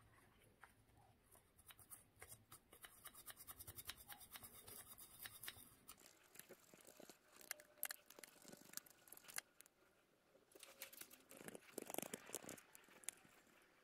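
Toothbrush scrubbing the clogged inside of an Audi A4 1.9 TDI's EGR valve: faint scratchy brushing, a quick run of strokes in the first half, then slower, irregular scrubs with a few knocks.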